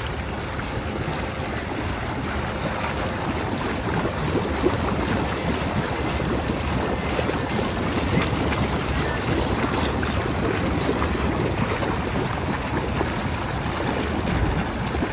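Hot tub jets running, churning and splashing the water in a steady rush.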